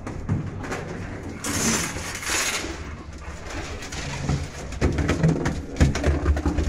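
Two chow chows crowding into a small elevator car. A rush of noise comes about a second and a half in, followed by knocks and rustles of paws, leashes and handling, with low cooing sounds.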